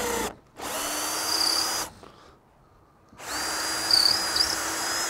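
Power drill with a large bit boring oversized holes through a fibreglass boat deck with a plywood core, running in three separate bursts of a second or two each, each starting and stopping abruptly, with a steady whine.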